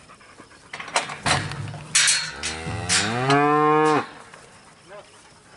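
A cow moos once, a long call that rises in pitch, holds, then cuts off suddenly, starting a little past two seconds in. A few sharp knocks come just before it.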